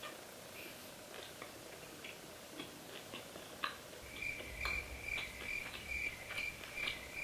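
Faint mouth clicks from chewing fried chicken. From about four seconds in, a quiet high chirp repeats about three times a second over a low hum that starts at the same moment.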